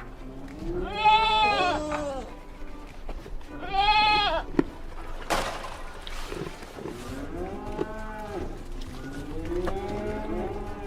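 Farm animals calling, each call rising and falling in pitch: two loud calls of about a second each, then several fainter, overlapping calls in the second half.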